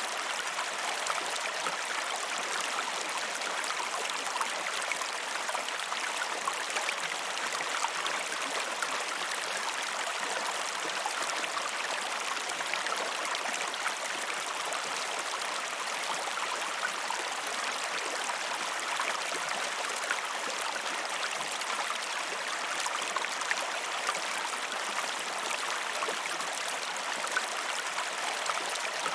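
Flowing river water: a steady, even rush with no deep rumble.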